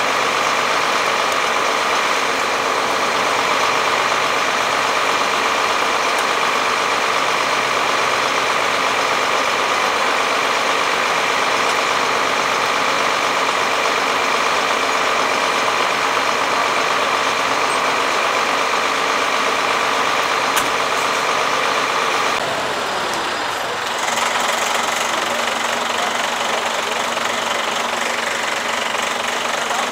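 Heavy diesel crane lorry's engine idling steadily, with a brief dip in level about 22 seconds in.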